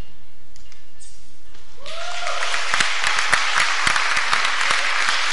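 The last notes of the acoustic guitars fade out, then a bit under two seconds in an audience breaks into applause that keeps going.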